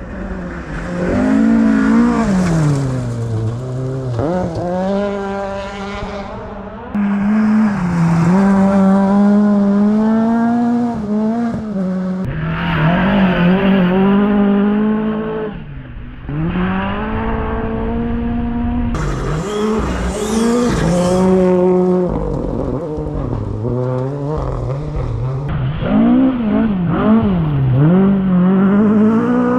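Rally cars at full stage pace on loose gravel, one after another: engines revving hard, dropping and rising again through gear changes and corners, with gravel hissing and spraying from the tyres.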